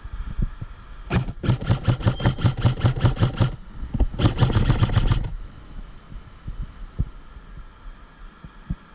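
Airsoft gun firing two rapid full-auto bursts, each a fast run of evenly spaced shots: the first about two and a half seconds long, the second about a second.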